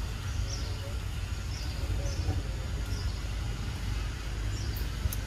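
Outdoor forest ambience: a steady low rumble under a soft hiss, with a short high chirp repeating every second or so and a couple of faint clicks near the end.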